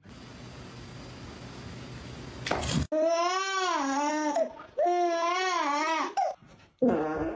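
An even hiss for the first few seconds, then a pet's long, wavering cries: two drawn-out calls that bend up and down in pitch, and a short third one near the end.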